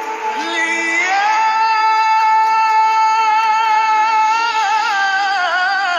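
A male singer holds one long, high note with vibrato, then breaks into a wavering, ornamented run of notes near the end.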